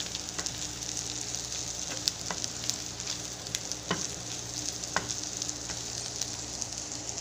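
Scrambled egg and mixed diced vegetables sizzling in a hot nonstick frying pan as they are stirred: a steady hiss with a few scattered sharp clicks.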